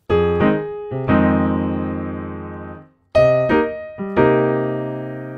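Piano playing a short jazz comping figure on a minor seventh chord twice: a few quick broken-up chord stabs, then a held chord left to ring and fade. The second time, starting about three seconds in, it is transposed to another key.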